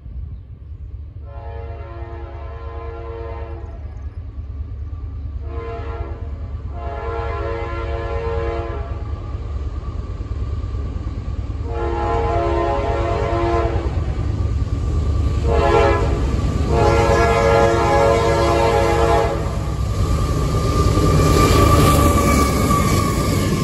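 Diesel locomotive horn on an approaching CSX freight train, sounding two sequences of long and short blasts in the pattern used for grade crossings, over a low engine rumble that grows steadily louder. Near the end the locomotives pass close by with a louder engine roar and the rolling noise of wheels on rail.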